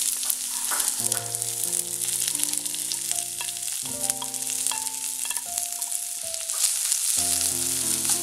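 Chopped carrot, cabbage and beans sizzling as they drop into hot oil in a wok and are pushed around with a spatula, a steady frying hiss. Soft background music with sustained chords plays under it.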